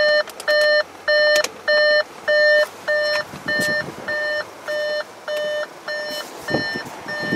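2013 Audi Q5's warning chime beeping steadily, about one and a half beeps a second, with the driver's door open. A few light clicks and a couple of thumps come near the end as the beeps grow a little quieter.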